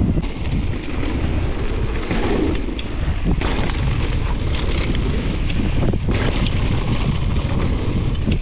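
Wind buffeting the microphone over the rumble of mountain-bike tyres on a gravel trail, with frequent rattles and clacks as the bike rides over bumps.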